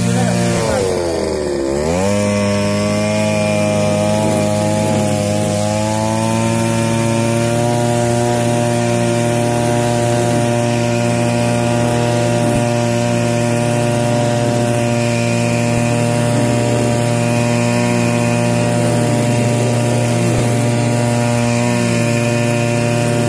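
Petrol brush cutter engine running at high speed while its nylon trimmer line cuts grass. The engine speed dips sharply about a second in and picks back up, then holds steady.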